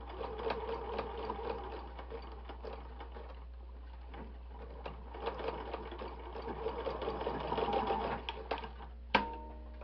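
Electric domestic sewing machine stitching with its rapid needle rattle, easing off briefly midway and then running again. A single sharp click with a short ring near the end.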